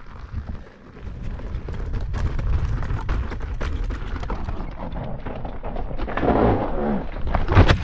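Begode T4 electric unicycle rolling fast down a loose dirt-and-gravel trail: a low rumble of tyre and wind with scattered crunches and knocks. About six seconds in a louder rushing noise rises, then sharp heavy knocks near the end as the wheel cuts out and the rider is thrown.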